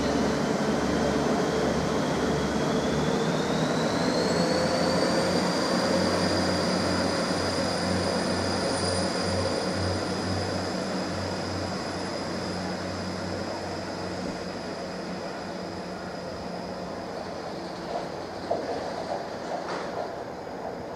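Class 175 Coradia diesel multiple unit pulling out of the station under power. A high whine rises in pitch a few seconds in and then holds steady, and the running noise slowly fades as the train draws away.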